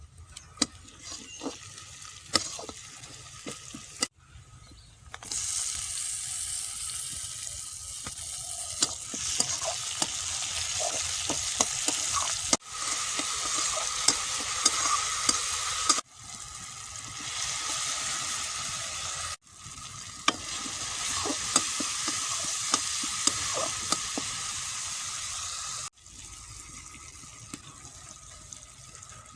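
Food frying and sizzling in a pan while being stirred, with sharp clicks and scrapes of the utensil against the pan. The sizzle is quieter in the first few seconds and near the end, and stops and restarts abruptly several times.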